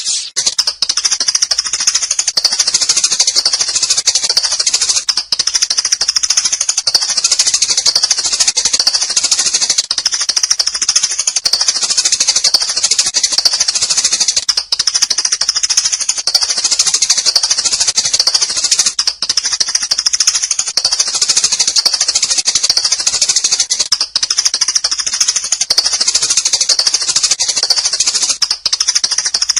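Sparrows chirping in a dense, unbroken chatter of high-pitched calls.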